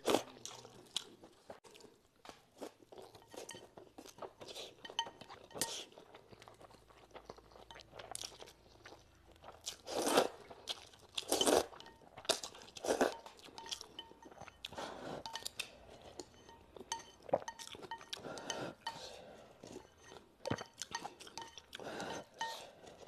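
A person eating noodles in broth from a bowl, slurping and chewing in short, uneven bursts. The loudest slurps come about ten and eleven and a half seconds in.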